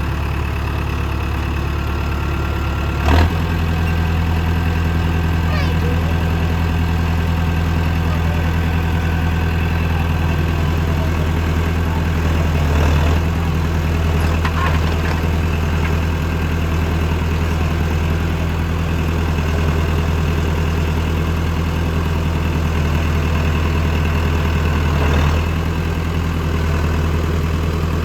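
Mahindra tractor's diesel engine running steadily with a backhoe attachment. A sharp knock comes about three seconds in, after which the engine note steps up and holds, with brief swells near the middle and near the end.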